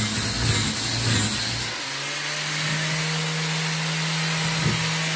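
A steady machine hum over a constant hiss. The hum steps up in pitch about two seconds in and then holds steady.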